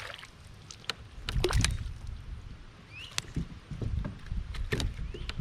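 Kayak on a river: water sloshing and a low rumble around the hull, with scattered sharp clicks and knocks from gear on the boat.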